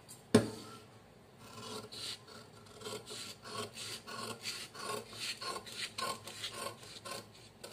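Scissors cutting through a paper sleeve pattern, a steady run of snips about two or three a second. A single sharp knock comes shortly before the cutting starts.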